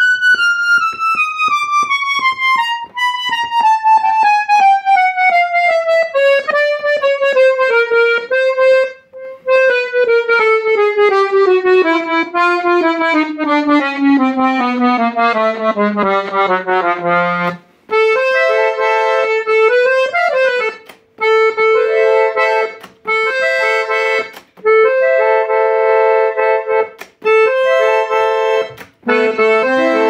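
Piano accordion played one note at a time in a steady descending scale down the treble keyboard. After a brief break it switches to short held chords repeated with short gaps, and lower notes join in near the end.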